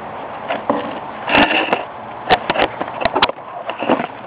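Handling noise from a camera being moved and set up: a string of short knocks and clicks, several close together in the middle, over a steady background hiss.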